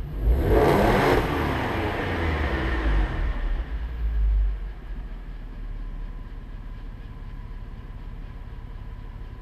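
2006 Audi TT 3.2's VR6 engine running through its stock exhaust in an enclosed garage: a brief rise in revs about half a second in, then running low. It settles to a quieter steady idle about halfway through.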